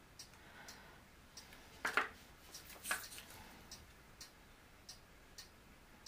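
Faint, regular ticking, about two ticks a second, with a louder click about two seconds in and another about three seconds in.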